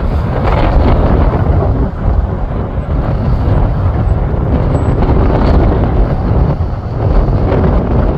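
Steady jet engine noise from an aircraft passing overhead, mixed with heavy wind buffeting on the microphone that makes the low end flutter.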